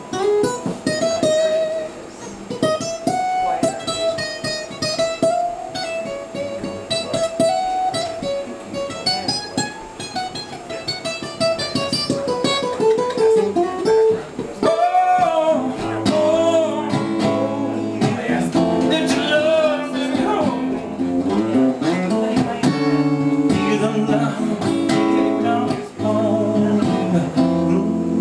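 Acoustic guitar played solo: quick picked single-note runs in the first half, then fuller held chords from about halfway through.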